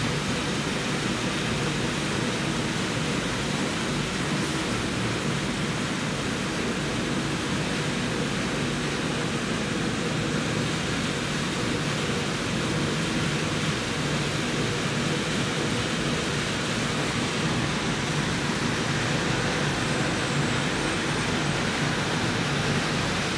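Steady, unchanging machinery noise of a PCB recycling line running, with its screw conveyors and elevators switched on.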